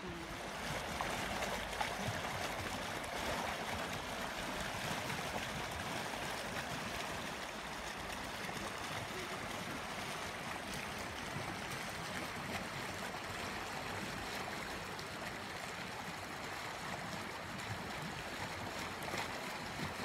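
Steady rushing of the Azusa River, a clear, shallow mountain river flowing over a gravel bed.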